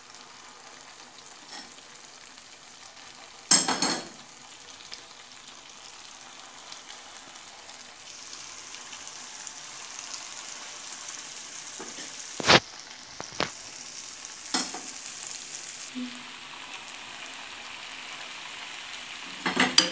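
Churro dough sizzling and bubbling as it fries in hot oil, with the sizzle growing louder about eight seconds in as more dough goes into the pan. A few sharp knocks break in, the loudest a little after three seconds and near twelve and a half seconds.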